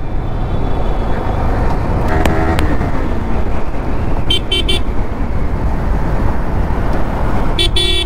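Steady low road and wind noise of a moving motorcycle in traffic, with vehicle horns sounding: a short horn about two seconds in, three quick high-pitched beeps around four seconds in, and another horn just before the end.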